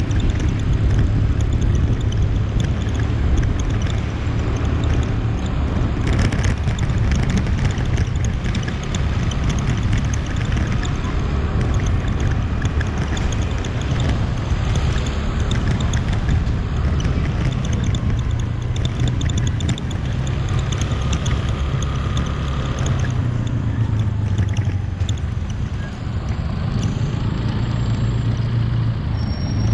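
Steady engine drone of a moving motorbike with wind and road noise, amid surrounding city traffic.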